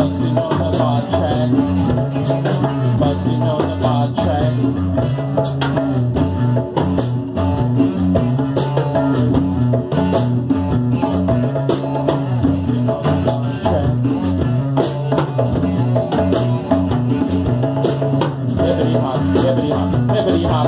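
Live band jam with no singing: electric guitars play over a repeating bass line, and a djembe played by hand keeps a steady beat.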